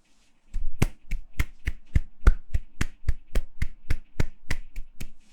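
Hands clapping in a fast, even rhythm, about three to four claps a second, starting after a brief pause.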